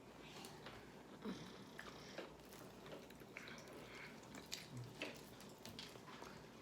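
Faint chewing and mouth sounds of people eating, with scattered small clicks and smacks.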